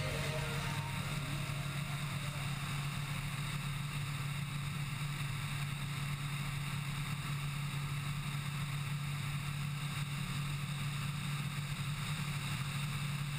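Microlight aircraft engine droning steadily in cruise flight, with a constant rush of wind over the aircraft.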